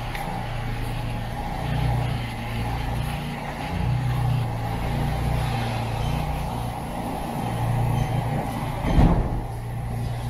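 Steady low rumble of a motor vehicle engine in a city street, with a short, loud thump about nine seconds in.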